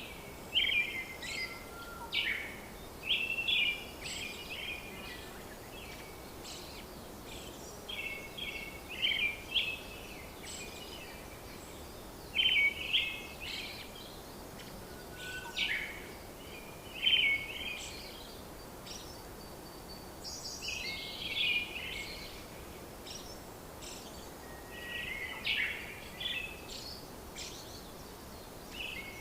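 Birds chirping and singing in short bursts of quick chirps and trills every second or two, over a faint steady hiss.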